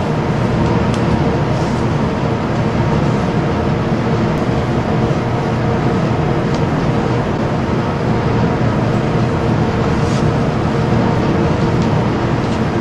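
Steady loud drone of a spray booth exhaust fan, with a faint hum and a few faint clicks.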